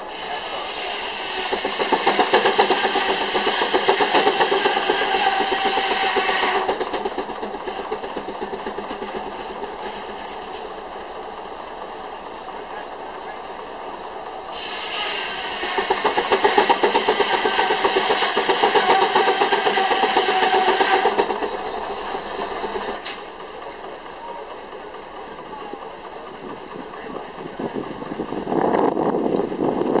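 Steam traction engine belted to a sawmill, chuffing under load while the saw cuts through timber twice, each cut lasting about six seconds with a loud, high-pitched ripping noise. Between the cuts the engine runs lighter.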